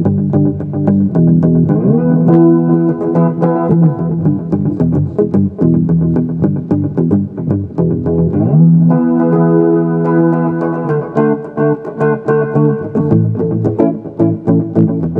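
Telecaster-style electric guitar played continuously, strummed and picked chords with many quick note attacks. The pitch slides twice, about two seconds in and again near nine seconds.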